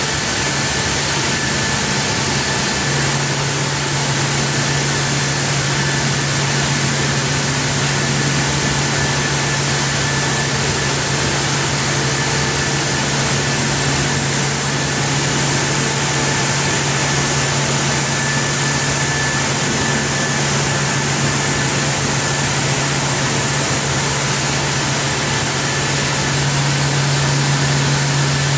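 Rotary vacuum filter in a cane sugar mill running steadily: a constant loud hiss of machinery with a low hum that grows stronger about three seconds in and again near the end, and a faint high whine.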